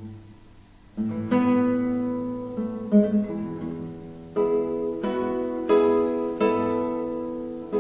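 Solo classical guitar played slowly. A chord fades away, and from about a second in full chords are plucked one after another, each left to ring and die away before the next.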